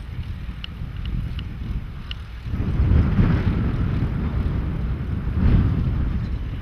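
Gusty wind buffeting the microphone over the low running of a distant Mahindra 475 DI diesel tractor pulling a cultivator through a dry field. The rumble swells about two and a half seconds in and gusts again near the end.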